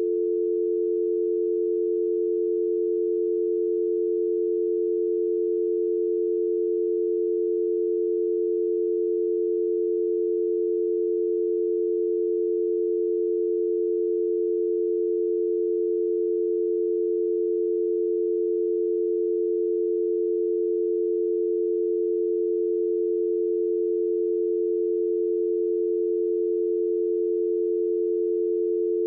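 North American telephone dial tone: two pure tones, 350 Hz and 440 Hz, sounding together as one steady, unbroken hum. It is the exchange's signal that the line is ready for dialling.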